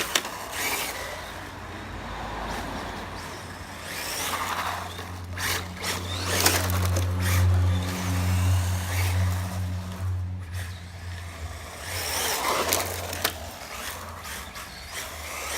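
Brushless-powered HPI RS4 Sport RC car driving back and forth on 3S, its motor whine and tyre noise rising and falling as it passes several times. A steady low hum runs underneath, loudest in the middle.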